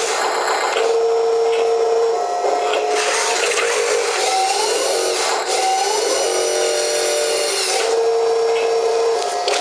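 Wheel loader at work, its engine and hydraulics giving a steady whine that changes pitch and rises several times as it revs.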